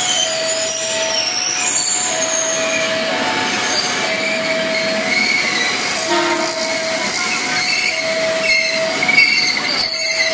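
Electric commuter train passing over a level crossing, its wheels rumbling on the rails with high squeals. The crossing's warning alarm sounds alongside it, a tone repeating every second or two.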